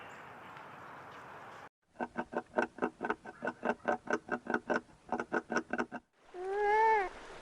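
Animal calls: a quick run of short repeated calls, about four or five a second for some four seconds, then near the end a single drawn-out call that rises and then falls in pitch.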